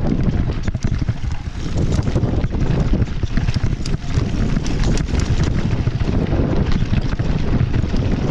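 Wind buffeting the microphone of a camera on a mountain bike descending a rocky dirt trail, with frequent sharp clicks and rattles as the tyres and bike go over stones.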